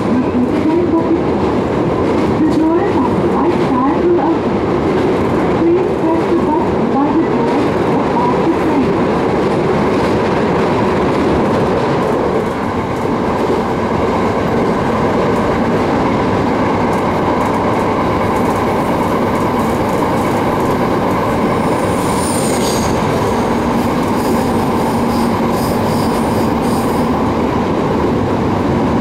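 JR East 701-series electric train running along the track, heard from inside the car: a steady rumble of wheels on rails with clickety-clack from the rail joints. A brief high squeal comes about three quarters of the way through, and faint high tones linger for a few seconds after it.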